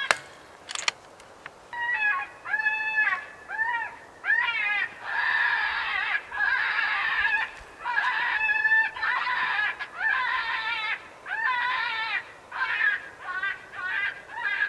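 Electronic predator caller playing a prey-distress call to draw in coyotes: a string of high, wavering cries about one a second, some of them harsh and raspy, starting about two seconds in.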